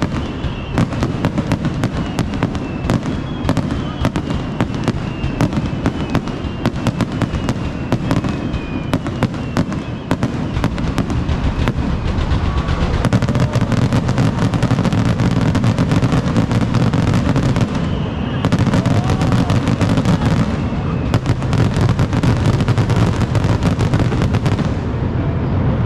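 Fireworks going off in a dense, continuous barrage of bangs and crackles, growing heavier and louder about halfway through.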